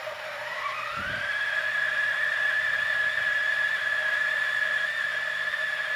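Turin DF64V single-dose espresso grinder starting up and grinding a dose of coffee beans at full speed. Its motor whine rises in pitch over the first second, then holds steady over a grinding hiss.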